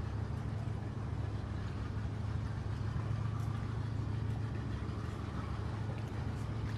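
Steady low hum of a large car carrier ship's engines as the vessel moves slowly past.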